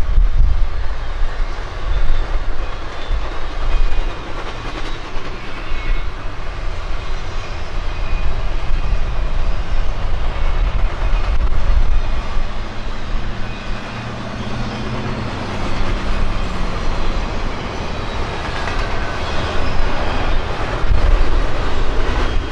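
Union Pacific double-stack container train cars rolling past: a steady, loud low rumble of steel wheels on the rails.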